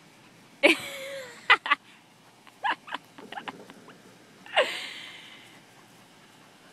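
English springer spaniel barking in short, sharp bursts: a loud bark under a second in, two quick ones right after, a few softer ones in the middle, and another loud bark a little past halfway that trails off.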